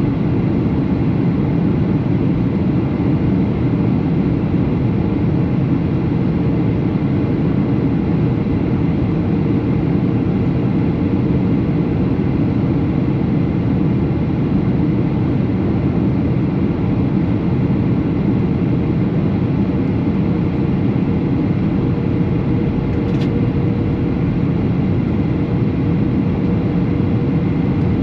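Boeing 737 in flight, a steady engine and airflow noise with a faint constant hum through it. A single brief click comes near the end.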